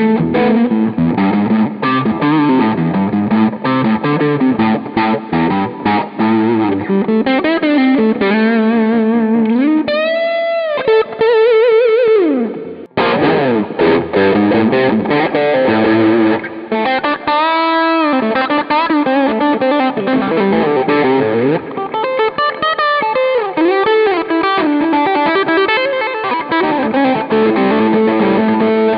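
Sqoe SEPRS 900 electric guitar with humbucker pickups, played through overdrive: continuous distorted lead lines, with held notes bent and shaken in wide vibrato about ten and seventeen seconds in. The sound breaks off briefly about halfway through and goes on with the bridge humbucker alone, after the neck and bridge pickups together.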